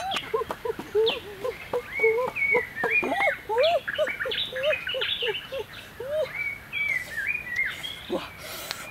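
Birds chirping: a dense run of short, bending calls one after another, with a single sharp knock near the end.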